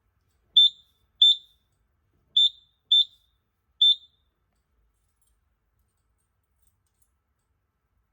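Simplex 4006 fire alarm panel's piezo sounder giving five short, high-pitched beeps at uneven intervals, then going quiet.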